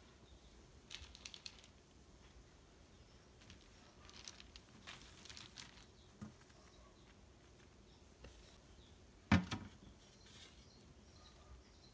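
Faint rustling and light clicks as small burlap sacks of nuts are handled and set on a metal tray. About nine seconds in there is one sharper knock as a small wooden cup is set down on the tray.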